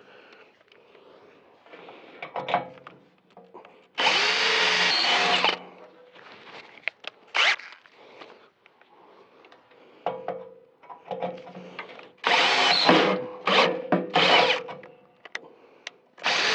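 Cordless drill boring into sheet metal that has just been sprayed with lubricant, run in trigger bursts: one of about a second and a half, a short one, then a quick series of short bursts and another run at the end.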